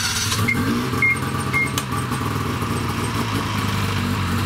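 A 2006 Ski-Doo snowmobile's two-stroke engine running steadily, seconds after being started with the electric starter.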